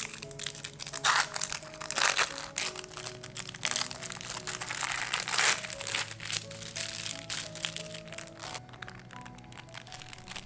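Thin plastic film of an individually wrapped cheddar cheese slice crinkling as it is peeled open, in crackly bursts loudest about one, two and four to five seconds in. Light background music plays with a simple melody throughout.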